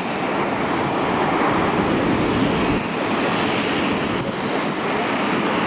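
Jet engines of a Boeing 787 airliner rolling along the runway, a loud, steady rushing noise that cuts off suddenly near the end.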